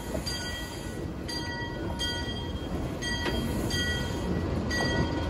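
Steam locomotive and its cars rolling past at track level: a low rumble of wheels on the rails that grows louder as the cars go by, with hissing steam from the cylinders and a high ringing tone that comes and goes several times.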